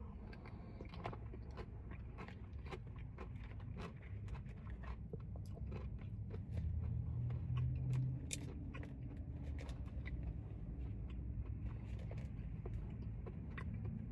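A person chewing a mouthful of ice cream packed with crunchy Oreo cookie pieces close to the microphone: many small irregular crunches over a steady low hum.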